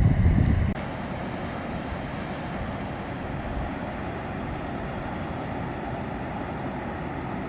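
Wind buffeting the microphone for under a second, cutting off abruptly, then a steady, even rushing noise with no distinct events.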